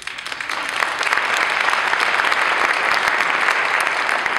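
Audience applauding, the clapping building about a second in and then holding steady.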